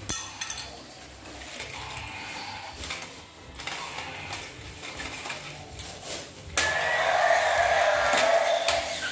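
Battery-powered toy dinosaurs being handled: light clicking of plastic at first, then, about two-thirds of the way through, a loud electronic roar from a toy's speaker starts suddenly and keeps going.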